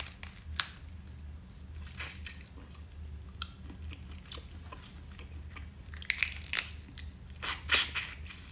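Boiled crawfish being cracked and peeled by gloved hands, a few scattered sharp cracks, then close-up eating sounds in two short clusters near the end as the crawfish is put to the mouth.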